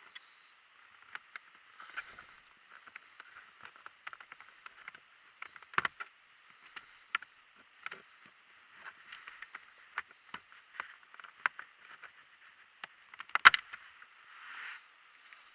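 Handling noises: scattered light clicks, taps and rustling, with a sharper knock about six seconds in and a louder cluster of clicks near the end.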